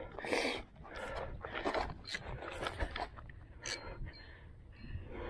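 A man's hard, fast breathing, a breathy rush about every half second to second, as he strains against a big fish on the line.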